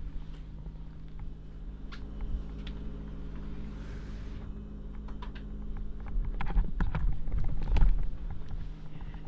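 Footsteps and handling knocks from a handheld camera being carried through a room, over a steady low hum. The thumps come thickest and loudest between about six and eight seconds in.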